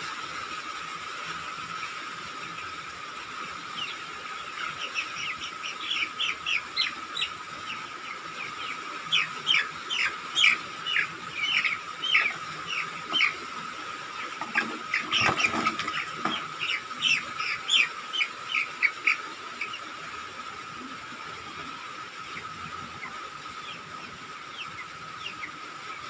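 A four-week-old broiler chick peeping loudly in rapid short, falling cheeps while it is caught and held in a scale bowl. These are distress calls at being handled. A brief scuffle comes about halfway through, and the peeping dies away in the last few seconds.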